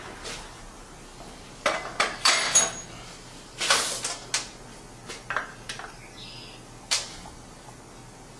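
Irregular sharp knocks and clatters, about ten of them, as a bundle of thin wooden strips is handled against the metal frame and pneumatic clamps of an arch-bending press. The sharpest come in a quick cluster around two seconds in.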